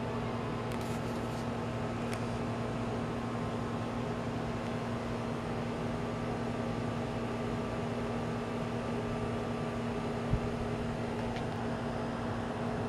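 Steady machine hum, a low drone made of several fixed tones, with one brief knock about ten seconds in.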